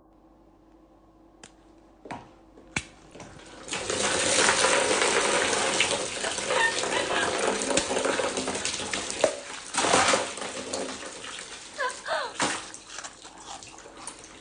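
Water running hard, as from a tap, starting after a few knocks about four seconds in, with a steady rush that fades off after about six seconds. Scattered knocks and a few short rising squeaks follow.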